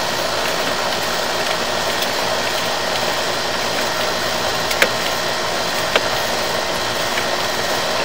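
Steady hum of a running HVAC compressor unit, with a faint steady tone. Two short clicks come about five and six seconds in.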